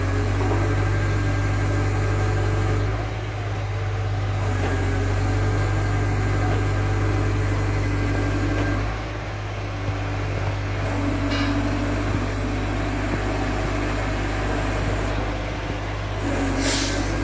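Crane engine running steadily with a low drone while it lowers a steel H-beam on a sling, its tone changing briefly a few times. A short knock sounds near the end.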